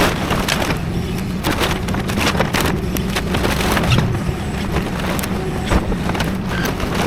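Excavator engine running steadily while demolition debris crunches and cracks, with many sharp knocks and splintering snaps.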